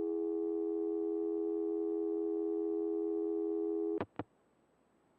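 A 1980s AT&T analog telephone line tone: a steady, unbroken two-note hum that cuts off about four seconds in. Two sharp clicks follow in quick succession, then faint line hiss.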